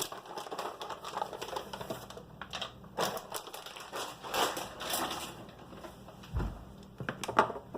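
Almonds dropping into a NutriBullet blender cup: many small, irregular clicks, with a dull thump about six seconds in.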